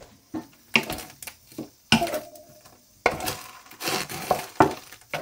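Kitchen cooking sounds: a utensil knocking against a pot and dishes in a series of sharp clacks, with a stretch of stirring noise in the middle.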